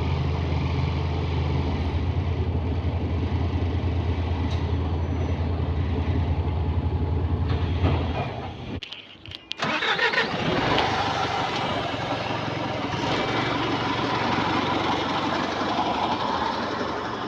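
Bus engine running with a steady low hum, which cuts out about eight seconds in. After about a second of near quiet, a broader, hissier running noise starts up and carries on.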